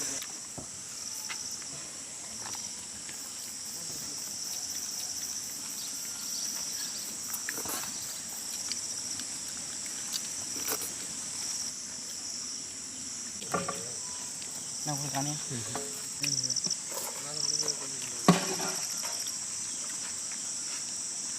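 Crickets chirping steadily in a high, even drone, with faint distant voices partway through.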